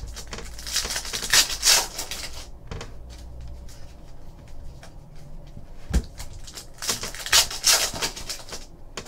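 Foil trading-card pack wrappers crinkling and tearing open by hand in two bursts, about a second in and again around seven seconds. A dull knock on the table comes just before the second burst, with light clicks of cards being handled in between.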